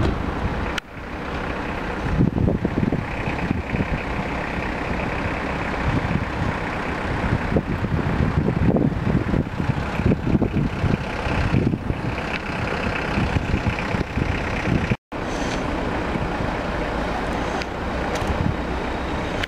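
Wind buffeting the camera microphone in irregular gusts over a steady outdoor rushing noise. The sound drops out for a moment about fifteen seconds in, then picks up again.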